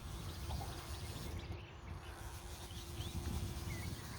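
Wind buffeting the microphone in a low, fluttering rumble, with a few scattered bird chirps and a faint steady hum underneath.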